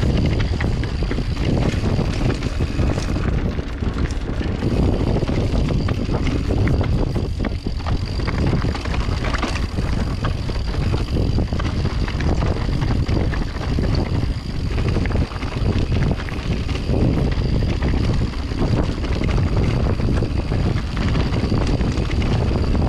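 Orbea Oiz mountain bike riding fast down a loose, rocky trail: wind buffets the microphone in a steady rumble while the tyres crunch over stones and the bike clatters constantly.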